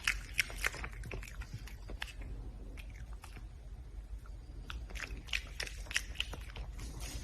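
Red panda chewing food, a run of sharp, crisp crunching bites that thins out in the middle and picks up again near the end.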